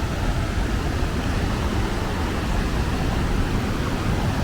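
Steady rushing noise of a fast glacial river, with wind buffeting the microphone to give a low rumble.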